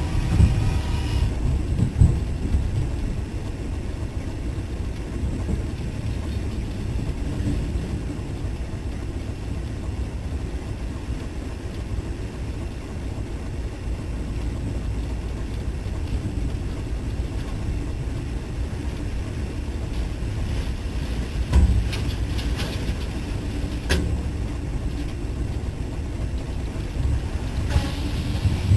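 Storm wind rumbling steadily against the microphone, with a few brief knocks.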